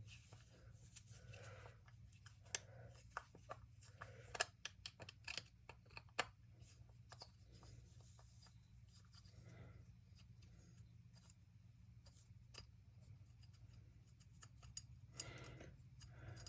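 Faint, scattered light clicks and taps as a corroded carburetor and its small parts are handled, over a low steady hum.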